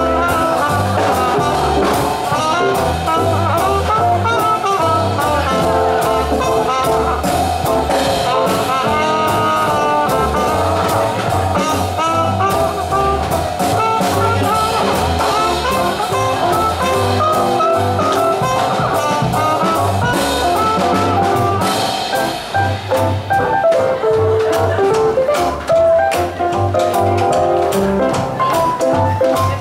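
A live swing jazz band playing: trumpet over upright bass and piano, with a steady bass pulse.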